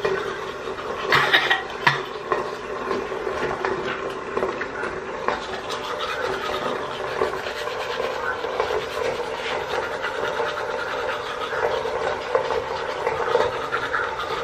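Manual toothbrush scrubbing teeth through a mouthful of toothpaste foam: continuous wet rubbing, with a couple of louder, sharper strokes about a second in.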